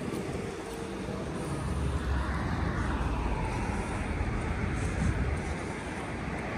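A car passing by on a road: its noise swells and sweeps down in pitch about two to three seconds in, over a steady low rumble of traffic.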